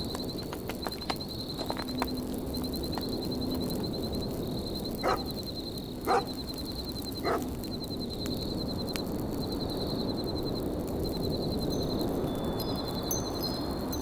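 Campfire crackling over a steady wind, with a high, rapidly repeating chime in short runs and three louder knocks about five to seven seconds in. Wind-chime tones ring near the end.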